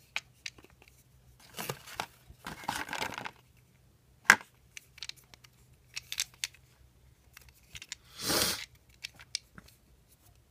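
Plastic packaging of a small phone accessory being handled and pulled at: short bursts of rustling and tearing with scattered sharp clicks, one loud click about four seconds in.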